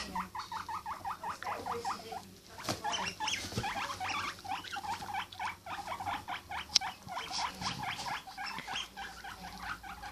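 Guinea pig squeaking, a rapid string of short high rising squeaks, about five a second, with a brief pause just after two seconds. A sharp click nearly seven seconds in.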